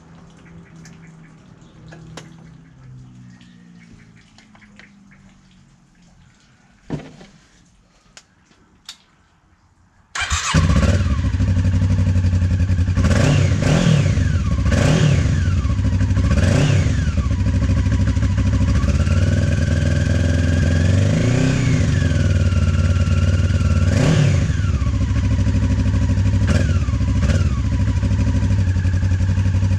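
1996 Honda CB500's parallel-twin engine starting about ten seconds in and idling through a freshly fitted Takkoni sport exhaust, blipped with several short revs and one longer, slower rev in the middle. Before it starts, a few faint clicks and knocks.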